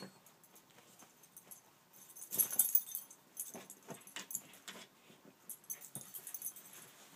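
A schnoodle scrabbling about on a bed, his paws and body scratching and rustling the blankets in irregular bursts, loudest about two and a half seconds in.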